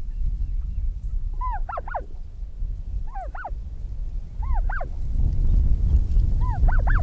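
Goose honking: four separate calls about one and a half seconds apart, each a short cluster of rising-and-falling notes. A steady low rumble runs underneath and grows louder in the second half.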